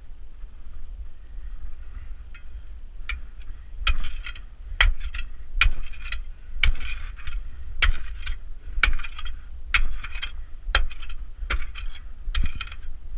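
A sharpened steel digging rod striking the gravel and rock of a mine tunnel wall, hand-digging, about one strike a second. The strikes start faint a few seconds in and are loud and even from about four seconds on.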